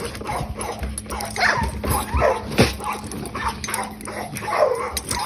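Bulldog puppies scuffling, with repeated short yips and barks: they are getting riled up with each other.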